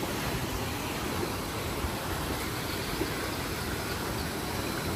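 Steady rushing and splashing of moving water in a lazy river.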